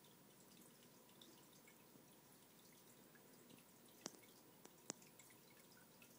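Near silence: faint aquarium water trickling and dripping with scattered tiny ticks, and two short sharp clicks about four and five seconds in.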